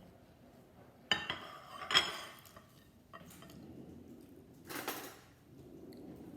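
Kitchen utensils clinking against plates and a pan while pancakes are served: a clatter about a second in, a sharp clink just before two seconds, and a short scraping rasp near five seconds.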